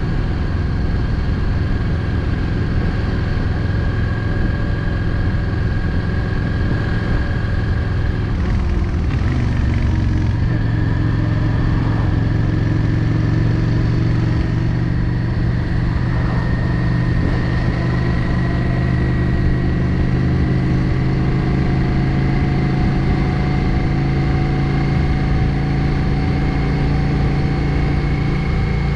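Yamaha XVS 650 Drag Star's 649 cc air-cooled V-twin running under way on the road. The note breaks and shifts about nine seconds in, then the engine pitch climbs slowly and steadily.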